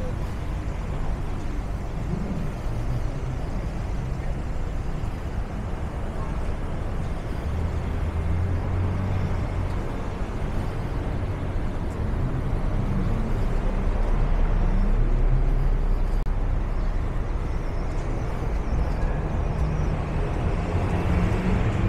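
City street traffic: motor vehicles running and passing, with a low engine rumble that swells about halfway through and then eases.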